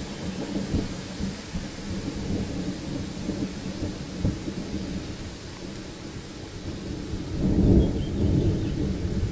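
Low, gusting rumble of a thunderstorm, with wind and thunder, swelling to its loudest about three-quarters of the way through.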